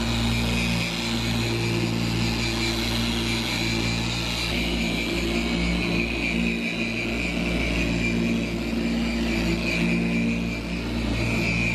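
A motor running steadily, with a constant low hum and a hiss above it.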